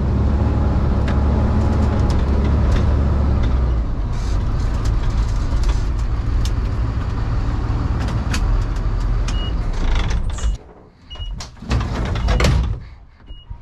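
Delivery step van running and rattling as it drives and pulls up, then its engine noise cuts off abruptly about ten and a half seconds in. A clatter follows about a second later, with a few short high beeps scattered through the last few seconds.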